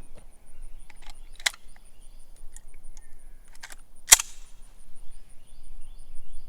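Two suppressed gunshots about two and a half seconds apart, each a single sharp crack: the first fairly soft, the second much louder with a short ringing tail. The soft one fits the Mills 147-grain poly-coated round and the louder one the Winchester 147-grain round, whose measured levels differ by about 30 dB.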